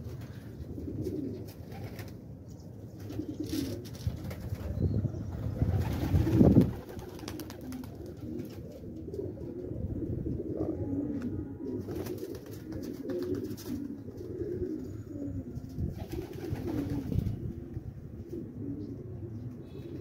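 Domestic pigeons cooing together in a steady low warbling murmur. A louder rush of noise builds about five seconds in and cuts off suddenly a moment later.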